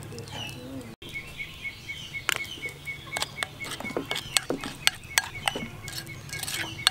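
A metal spoon stirring thick batter in a ceramic bowl, clinking and scraping against the bowl in sharp, irregular clicks. Behind it a bird chirps in a steady, rapid, even series.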